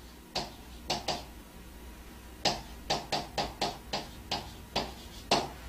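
A pen writing on a board: a string of short taps and scratches as the strokes of handwritten characters go down, sparse at first and then coming quickly one after another for the last few seconds. A low steady mains hum lies underneath.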